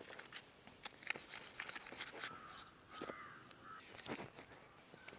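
Faint, scattered scrapes of a knife scaling a large catla fish, with a crow cawing twice around the middle.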